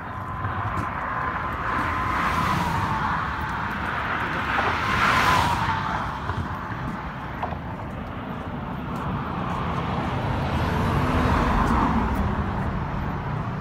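Highway traffic passing close by: tyre and engine noise from cars and trucks swelling and fading as vehicles go past, loudest about five seconds in, with a falling whine as each one passes.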